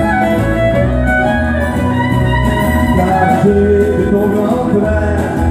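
Live country band playing an instrumental passage: a fiddle carries the melody over strummed acoustic guitars and drums.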